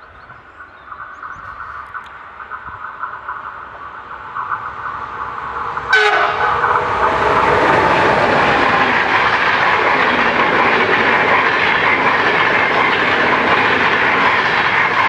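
A train approaching with a faint hum that grows slowly louder, then passing close at speed from about six seconds in: a sudden, loud, steady rush of wheels on rails.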